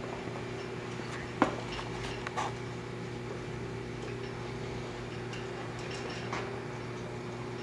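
Steady low electrical hum, with a few light clicks and one sharper click about a second and a half in.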